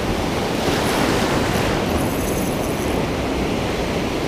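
Ocean surf breaking and foamy wash swirling through the shallows, a steady rushing, with wind rumbling on the microphone.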